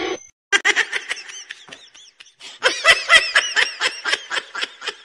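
A person laughing in a quick string of short ha-ha bursts, fainter at first and louder from about two and a half seconds in.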